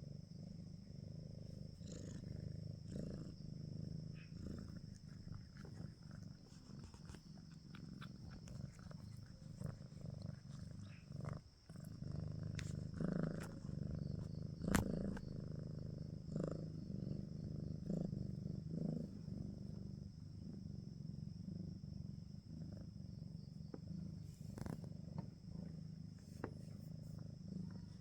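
Domestic cat purring steadily close to the microphone, a low pulsing rumble, with a few soft clicks and one sharp click about halfway through.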